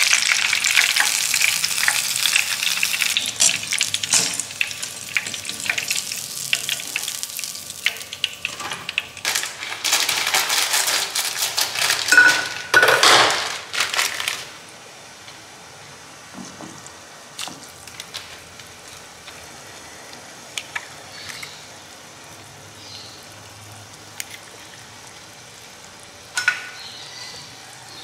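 Chicken drumsticks frying in shallow oil in a frying pan, a dense sizzle and crackle that stops abruptly about halfway. The rest is much quieter: a pan of water heating, with a few scattered light ticks and one sharper knock near the end.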